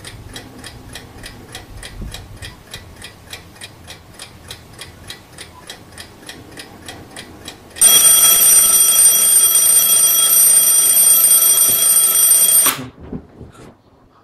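Quartz alarm clock ticking steadily, several ticks a second. About eight seconds in, its alarm goes off in a loud, steady, high-pitched ring that lasts about five seconds and stops abruptly.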